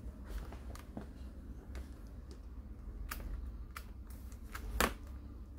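Scattered light clicks and taps from fingers pressing on and handling the laptop's plastic top case and its keyboard backing plate, with one sharper click near the end.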